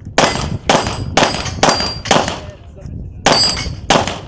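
Semi-automatic pistol fired in quick strings: five shots about half a second apart, a pause of about a second, then two more. Several hits on the falling steel plates ring with a short, high metallic ping.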